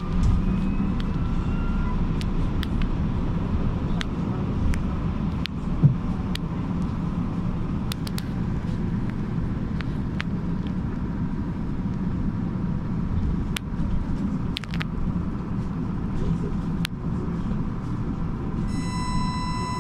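Ride inside a moving trolleybus: a steady low rumble with scattered rattles and knocks from the body on the snowy road, and one louder knock about six seconds in. A faint whine rises at the start as it picks up speed, and a steady electronic tone comes in near the end.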